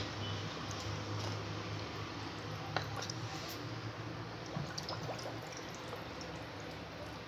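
A wooden spoon stirs granulated sugar and water with mandarin and lemon pieces in a metal pot, the mixture sloshing as the sugar is still undissolved at the start of making syrup. A few light knocks of the spoon sound partway through.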